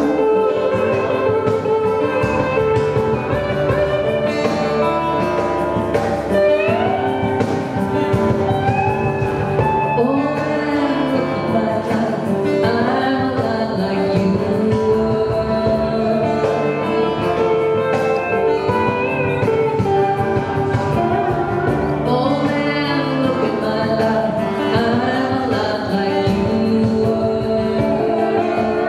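Live acoustic band: several acoustic guitars strumming and picking, with a woman singing the lead over them.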